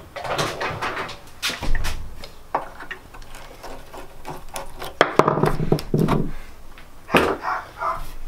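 Tools and metal parts being handled on a workbench: a series of short knocks and clinks, with a few louder ones a little over halfway through.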